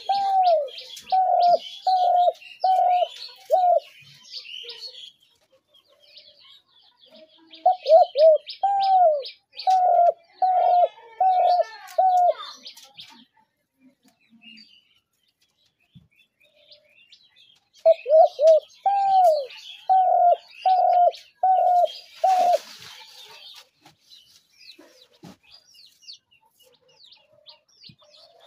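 Spotted dove cooing in three bouts, each opening with a quick stutter and then about five evenly spaced low coos. Smaller birds chirp higher up in the background.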